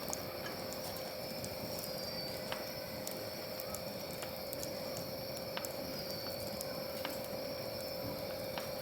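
Campfire wood crackling with scattered sharp pops, over a steady even hum from the pellet stove's forced-draft fan.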